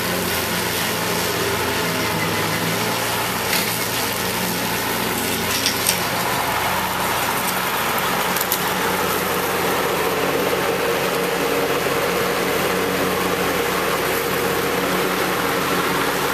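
Kubota L3400 diesel tractor engine running steadily with its rear rotary mower cutting tall weeds. There are a few sharp clicks about three and a half and six seconds in.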